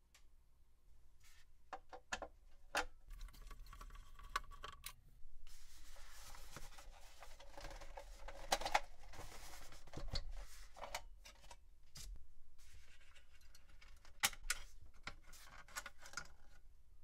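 Dell OptiPlex 9020 Micro being taken apart by hand: the metal cover sliding off, the front panel unclipping and the plastic drive caddy lifting out. Scattered sharp clicks and snaps, with a longer stretch of scraping metal and plastic in the middle.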